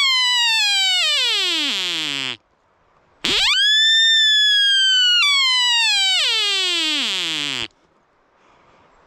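Ezo sika deer stag's rutting call, heard as long high whistles: the falling end of one call sliding down into a low moan, then after a short gap a full call that rises sharply, holds for about two seconds, and slides steadily down into a low groan.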